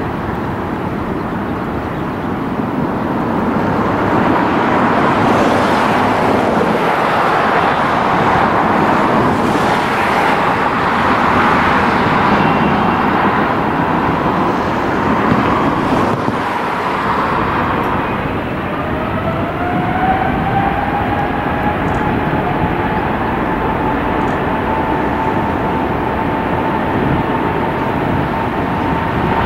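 Jet airliner engines roaring steadily, swelling from about four seconds in, with a turbine whine that rises in pitch about two-thirds of the way through and then holds steady.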